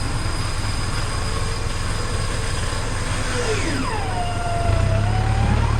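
Off-road 4x4 engine running under load on a trail, a steady low drone that grows louder about three-quarters of the way through. A smooth tone slides down and then back up over it in the second half.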